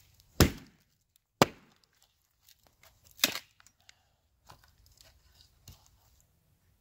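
Hatchet chopping into a thin stick laid across a log, splitting it lengthwise: three sharp chops in the first three and a half seconds, then two lighter knocks.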